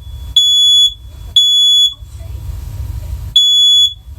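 First Alert Onelink smoke alarm's horn sounding its test alarm: loud, high-pitched, steady beeps about half a second long, one a second, in the three-beeps-and-a-pause evacuation pattern. Two beeps end one group, and after a pause of about a second and a half the next group begins. The alarm sounding on test shows the unit works.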